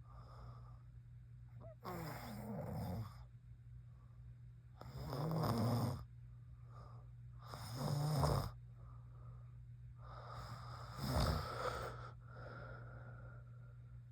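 A woman snoring in sleep: four loud, rattling snores about every three seconds, with fainter breaths between them.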